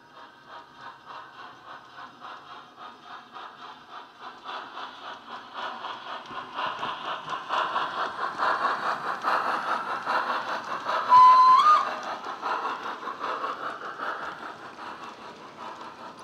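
Hornby D16/3 model steam locomotive's Wheeltappers DCC sound decoder, playing through an ultra-flat bass-enhanced speaker, gives a rhythmic steam exhaust chuff as the model runs past. The chuffs grow louder and then fade as the locomotive draws away. About two-thirds of the way through there is a short whistle blast, the loudest sound, held on one note and then stepping up in pitch just before it stops.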